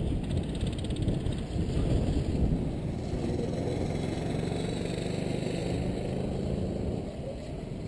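Rental kart's engine running at low speed as the kart rolls slowly, rough at first, then a steadier drone that drops off in loudness near the end.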